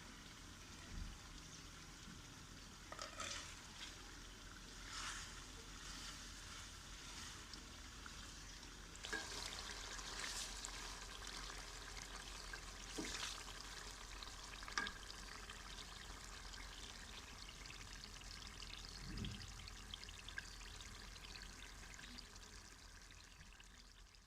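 Chicken and potato curry sizzling in its pot, a steady soft hiss, with a few short clicks and knocks scattered through it.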